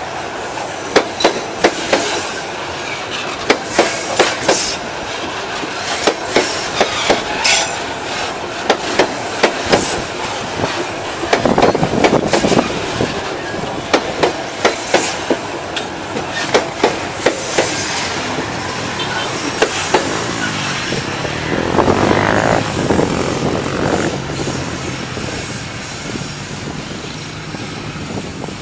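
Freight train of hopper cars rolling past close by, the wheels clacking over the rail joints in quick groups of knocks. Two louder stretches of wheel noise come about twelve and twenty-two seconds in.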